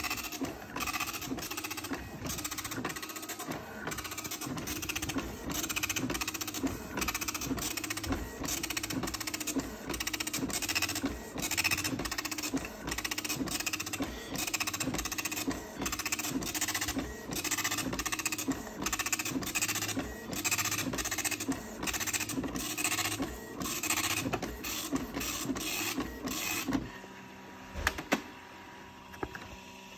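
Panasonic KX-P2124 24-pin dot matrix printer printing a test page, its print head rasping across the paper in rapid repeated passes, line after line. The printing stops near the end, followed by a single click.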